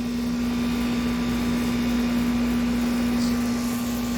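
A steady mechanical hum with one constant low tone, unchanging throughout.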